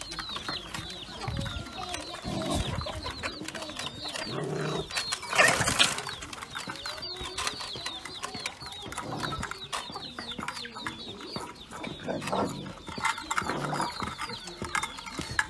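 Birds calling: many short, high, falling chirps throughout, with occasional lower calls. A brief loud noise about five and a half seconds in.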